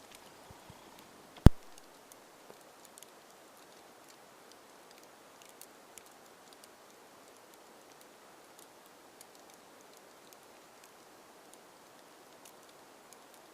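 A single sharp click about a second and a half in, then faint scattered light ticks and rustling over a soft steady hiss.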